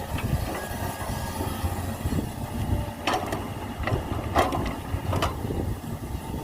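Heavy diesel engine running steadily, with four sharp knocks between about three and five seconds in.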